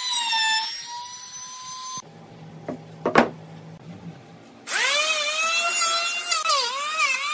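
Electric trim router running with a high whine, which stops abruptly about two seconds in. There is a quieter stretch with a low hum and a sharp knock. Then, about five seconds in, an electric hand planer spins up with a rising whine and cuts the plank, its pitch dipping repeatedly under load.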